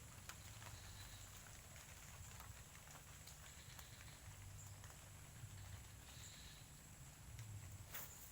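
Near silence: faint outdoor ambience with a low steady hum and scattered light clicks, one sharper click near the end.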